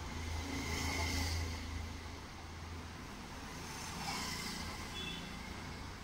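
A motor vehicle's engine going past, loudest about a second in and swelling again around four seconds, over a steady hum.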